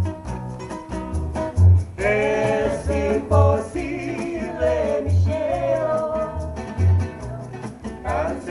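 A woman sings a slow Latin bolero, her voice coming in about two seconds in, over an upright double bass plucking a steady pulse of low notes and a strummed acoustic guitar.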